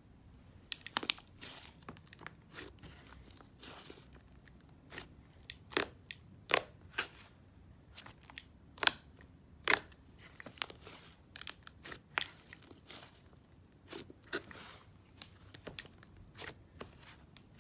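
Clay-based butter slime being pressed and stretched by hand, giving an irregular run of sharp clicks and pops, loudest about halfway through.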